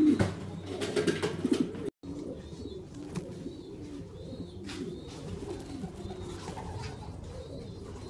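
Shami pigeons cooing, a low warbling coo repeated over and over. It is louder for the first two seconds, breaks off sharply, then carries on more softly.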